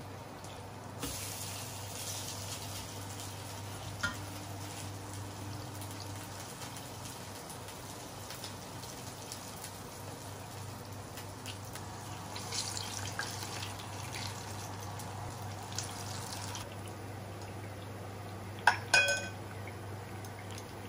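Kitchen sounds over a low steady hum. A hiss starts about a second in and stops well before the end, with a small knock partway through. Two sharp, ringing clinks of hard kitchenware come near the end.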